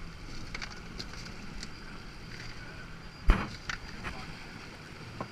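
Fish and ice being handled in a fiberglass fish box: a sharp knock about three seconds in, with a few lighter clicks around it, over a steady low hum.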